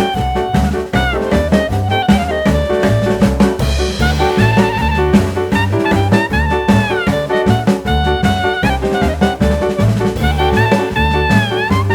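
Jazz background music: a horn melody with sliding notes over a drum kit and a moving bass line.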